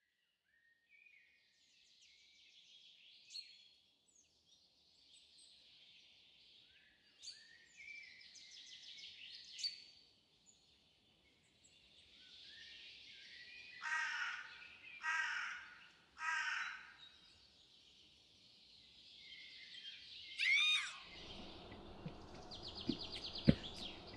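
Birds singing and chirping in a dawn chorus, with one bird giving three loud calls about a second apart midway. Near the end a low rumble comes in under the birds.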